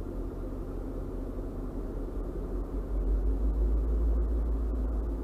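Low, steady engine rumble, growing louder about three seconds in, heard through a vehicle's windshield and cabin.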